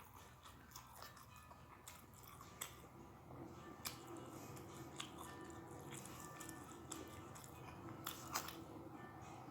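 A person chewing and biting crunchy food close to the microphone: irregular crisp crunches, over faint background music.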